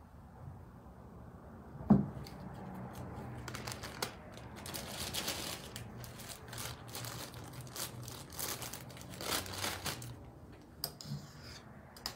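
Thin plastic bag crinkling in irregular handfuls as shortening is spooned into it and the bag is handled. A single sharp knock about two seconds in is the loudest sound, with a smaller click near the end.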